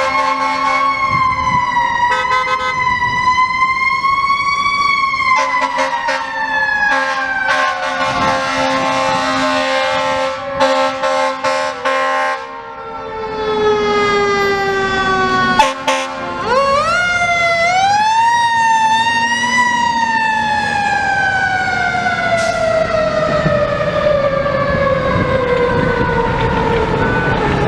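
Federal Q2B mechanical siren on a fire rescue truck, winding slowly down, spun back up to a peak about two-thirds of the way through, then winding down again. Air horn blasts sound in between.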